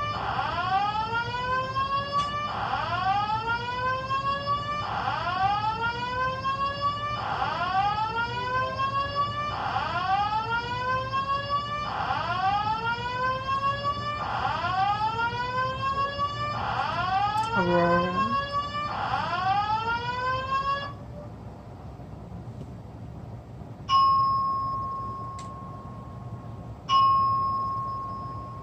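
Building fire alarm sounding a repeated rising whoop tone, one sweep about every two and a half seconds, which stops about 21 seconds in. Then two single chime tones ring out and fade, about three seconds apart.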